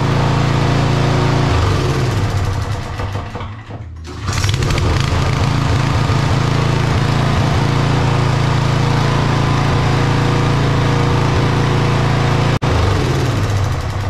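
Toro TimeMaster push mower's Briggs & Stratton engine running at speed after starting. It dips briefly about four seconds in and picks up again, then dies away near the end as it is shut off, a test of the newly replaced kill switch.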